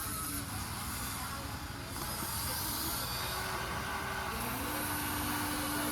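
Small electric motors of a Huina radio-controlled toy excavator whining over a steady mechanical hiss; one motor's pitch rises about four and a half seconds in and then holds.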